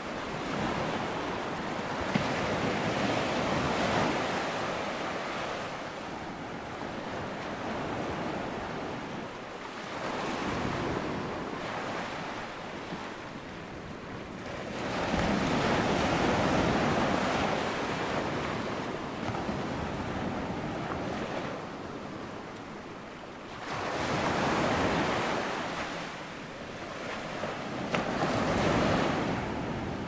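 Ocean surf: waves breaking and washing in, the rushing noise swelling and fading in slow surges about five times over the stretch.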